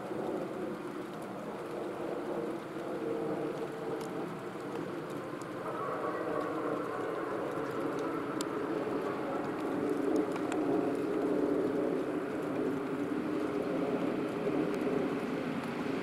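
Hyundai Rotem HRCS2 electric multiple-unit train approaching, its running noise growing steadily louder as it nears.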